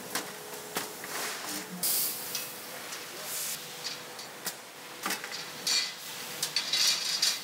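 Sheet-metal workshop sounds: scattered metal clanks and knocks from parts and tools being handled, over a faint steady machine hum, with several short bursts of hiss.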